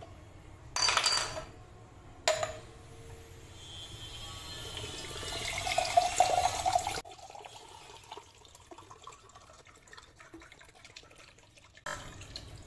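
Coconut water being poured out, the pouring growing louder over a few seconds and then cutting off suddenly. A brief loud noise and a sharp click come before it.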